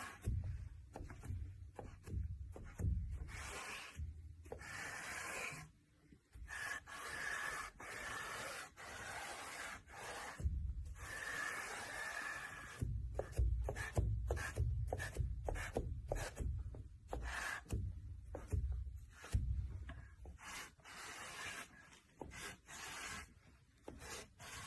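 Repeated scraping or rubbing strokes against a surface, broken by many short gaps, with a low rumble under some stretches.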